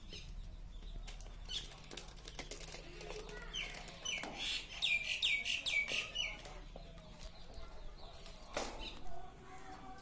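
Budgerigars chirping: a quick run of six or seven short falling chirps near the middle, with scattered light clicks as the birds pick at the seed.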